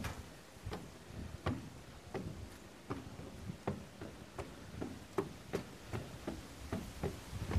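Footsteps climbing a long outdoor staircase, one step landing about every 0.7 seconds in an even rhythm.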